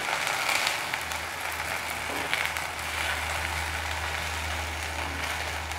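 Slices of rolled colocasia-leaf pakode sizzling as they shallow-fry in mustard oil in a kadhai. A fork is turning them over, giving a few light clicks, and a steady low hum joins about a second in.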